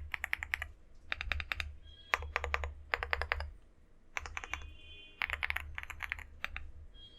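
Typing on a Leobog Hi75 mechanical keyboard with TTC Superman switches and a tempest tape mod: quick runs of keystrokes broken by short pauses.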